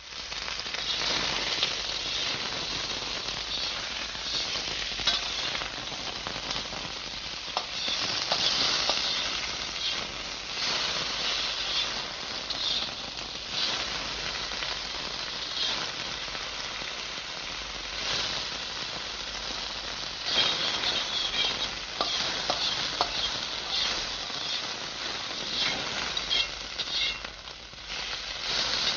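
Food frying in a hot pan: a steady sizzle full of small crackles and pops.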